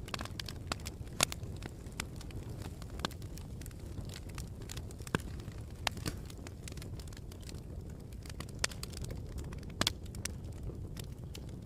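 Campfire crackling: irregular sharp pops and snaps over a steady low rumble, with the loudest pops about a second in and near the end.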